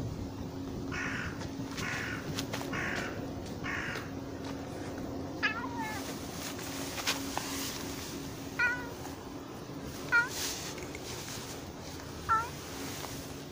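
A brown tabby-and-white cat meowing: short, high hooked calls, four of them one to two seconds apart, starting about halfway. Before that, four harsh calls come in a quick series.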